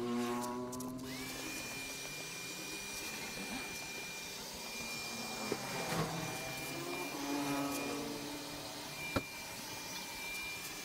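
Electric car-paint polishing machine running: a steady high motor whine that comes up to speed about a second in, holds, and winds down at the very end.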